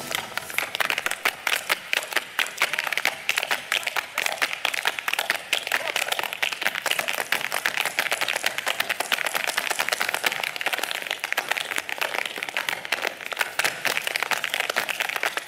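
Irish step-dancers' hard shoes striking the stage floor in rapid, dense clattering rhythms, unaccompanied by music.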